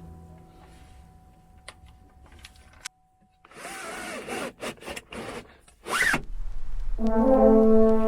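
Soft background music dies away, with a few faint clicks. After a brief break comes a few seconds of noisy sound with sliding pitch. About seven seconds in, loud music with sustained brass-like tones begins.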